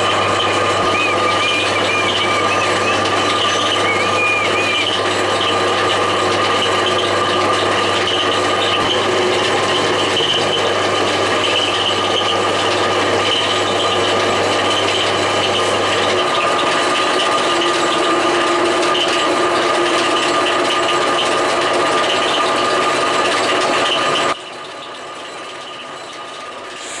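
Milling machine taking a cut with a carbide end mill in metal: a steady, loud run of spindle, belt drive and cutting noise with a squeaking whine, which the machinist puts down to the main motor's belts in the base being worn or out of line with the pulleys. About three seconds before the end the noise drops sharply.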